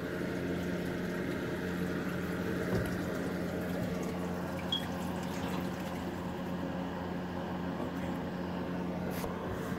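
Sink plumbing making a weird, steady humming noise over a rush of running water.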